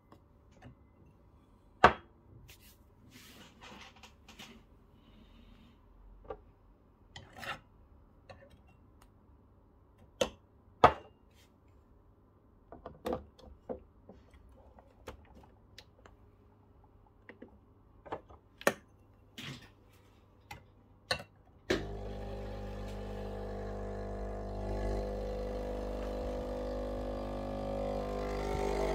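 Clinks and knocks as glass shot glasses are set on the drip tray and the portafilter is locked into the Breville Barista Pro's group head. About three-quarters of the way through, the machine's vibratory pump starts and runs with a steady hum as the espresso shot begins.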